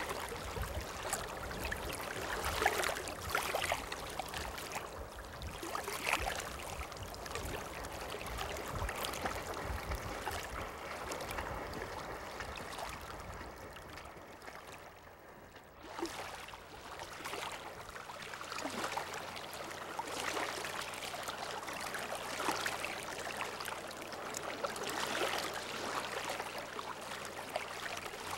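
A steady rushing background noise dotted with scattered clicks and taps. It sinks to its quietest about fifteen seconds in, then builds back up.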